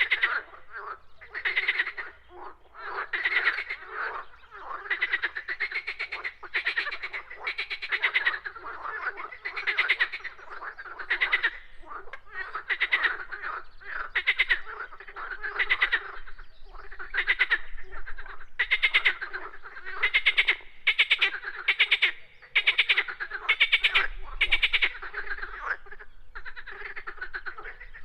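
Frogs calling in chorus: short, rapidly pulsed croaks repeated about once a second, several voices overlapping.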